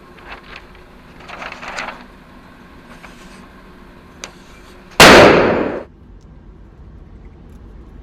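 A single revolver shot about five seconds in, the loudest thing by far, dying away over nearly a second. Before it there are a few short, weaker rattles and a sharp click.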